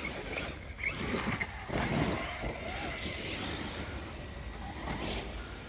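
Brushless electric motors of radio-controlled monster trucks whining in short bursts of throttle as the trucks drive across grass, with a few brief rising whines in the first couple of seconds.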